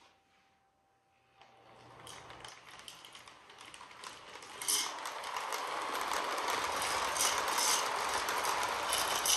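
A 1980s Lionel Nickel Plate Special O-gauge toy train, a 4-4-2 steam-style locomotive with freight cars, running on plastic-based FasTrack: a whirring motor and gears with the rattle and clicks of the wheels on the track. It grows louder from about a second and a half in and is loudest over the last few seconds, with sharp clicks now and then.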